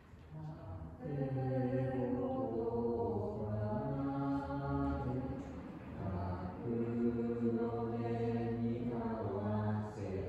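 Unaccompanied liturgical chant from a Catholic Mass: low voices holding long sung notes in two phrases, with a short break about halfway through.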